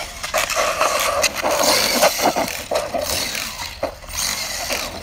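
Arrma Outcast 6S electric RC monster truck driving hard on asphalt: tyres scraping and the drivetrain rattling, with a clicking from the center differential that has a broken planetary gear.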